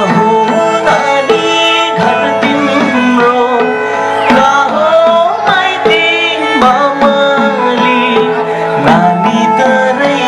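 A Nepali folk song performed live and amplified: a singer's voice over strummed acoustic guitar, a bowed sarangi, and a hand drum beating a steady rhythm.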